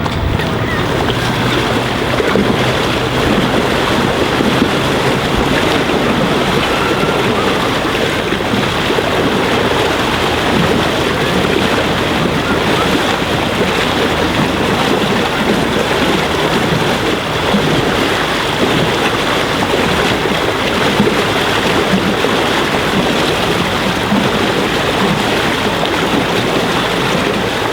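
Steady rush of water along the hull of the 1908 steamship S/S Tarjanne under way, with wind noise on the microphone.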